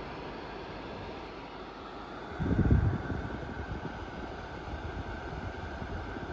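Electric fan running steadily, blowing air. About two and a half seconds in there is a brief loud low rumble, after which the fan noise is a little fuller.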